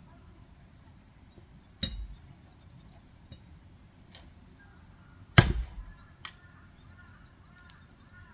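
Two heavy axe blows splitting firewood, about three and a half seconds apart, the second the louder, with a few lighter knocks of wood between and after.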